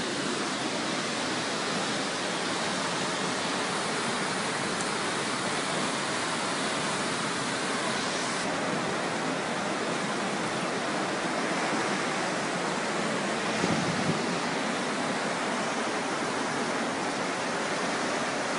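Steady, even rushing of a flash-flood torrent: fast muddy floodwater surging through a creek and over the road and car park.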